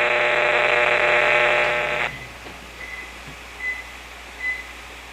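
Handheld RF radiation meter's audio output giving a loud, raspy buzz as it picks up leakage from a running microwave oven. The buzz cuts off suddenly about two seconds in, and four short high beeps follow, evenly spaced.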